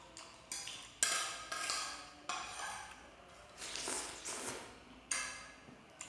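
A metal spoon clinking and scraping against a dish while eating, in about five short strokes, each with a sharp start that fades away.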